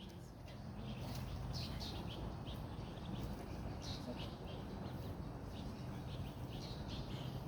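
Birds chirping: many short, high calls scattered throughout, over a steady low background noise.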